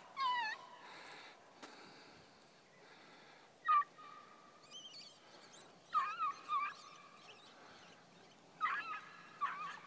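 Eleven-and-a-half-week-old beagle pups baying as they open on a rabbit, giving voice on its trail in scattered high yelps and bawls, one drawn out about four seconds in.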